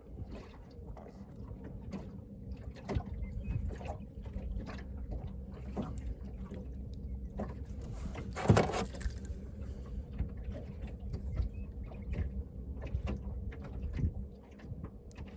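Knocks and clunks in a small fishing boat, with one louder knock about eight and a half seconds in, over a low steady hum.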